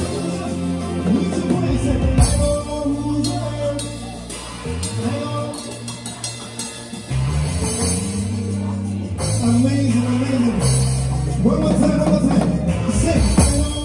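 Live praise band playing an instrumental groove: a bass line of held notes that change every second or two, with drum hits every few seconds.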